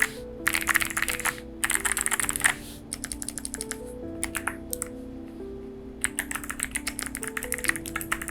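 Mechanical keyboard with clicky Kailh Box White switches, an FR4 plate and foam inside, being typed on: fast flurries of keystrokes in the first two and a half seconds, a few scattered presses through the middle, then steady rapid typing from about six seconds in.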